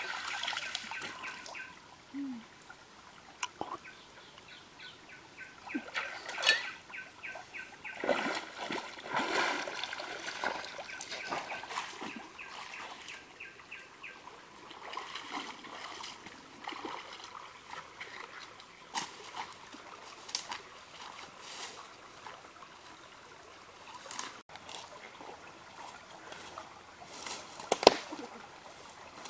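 Water splashing and trickling in a shallow stream as hands scoop water and legs wade through it, over the steady run of the stream. A single sharp knock stands out near the end.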